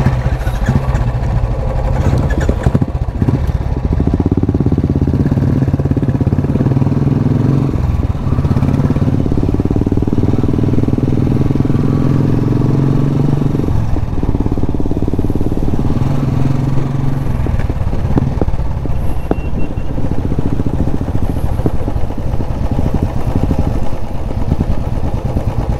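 Royal Enfield Bullet motorcycle engine running steadily on the move, its note changing a couple of times.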